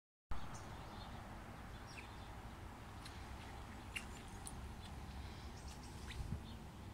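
Quiet outdoor ambience: a low steady rumble with scattered short, high bird chirps.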